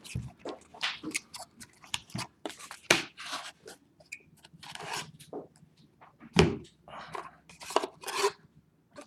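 Packaging of a sealed trading-card box being torn open and handled: a run of irregular crinkles, tears and taps, with a louder knock about six and a half seconds in.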